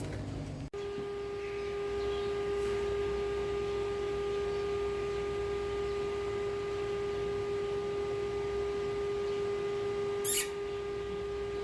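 A steady held tone with a few overtones, starting abruptly just under a second in, with a brief sharp hiss about ten seconds in.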